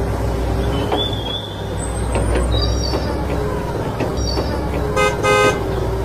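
Steady low engine rumble with birds chirping over it, and a short horn toot about five seconds in.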